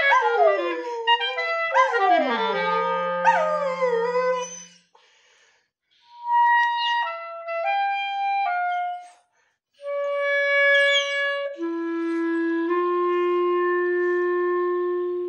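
A dog howling along with a clarinet, its howls gliding downward in pitch, for the first four seconds or so. The clarinet then plays on alone in short phrases of steady held notes, ending on a long held note.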